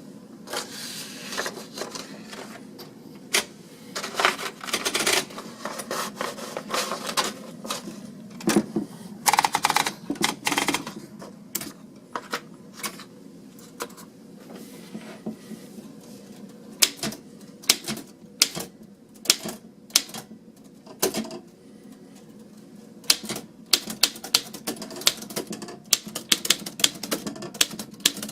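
Antique Underwood No. 5 manual typewriter being typed on: sharp, irregular key strikes in bursts with short pauses between, coming thickest near the end.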